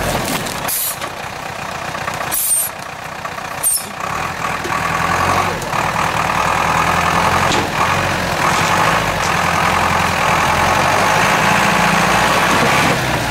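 GAZ-66 truck's engine running as the truck crawls forward over rough ground, getting louder about four seconds in and holding steady, with a few short hisses in the first few seconds.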